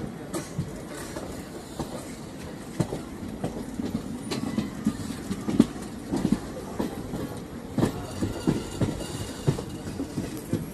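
Moving passenger train heard from the coach door: the wheels run on the track with a steady rumble, broken by many irregular sharp knocks and clatters.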